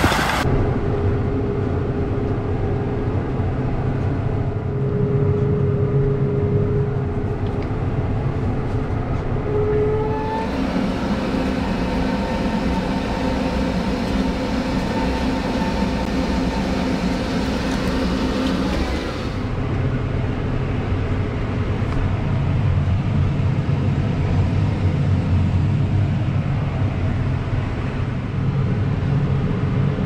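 Deutz Fahr 8280 tractor engine running steadily, heard across several shots. A thin steady whine sits over the low engine sound in the first stretch. From about ten to nineteen seconds the sound turns brighter and hissier, then returns to the deeper engine sound.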